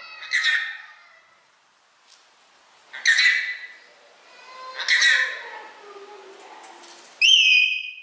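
Rainbow lorikeet squawking: three harsh screeches a couple of seconds apart, then a shorter, clearer whistle-like call near the end.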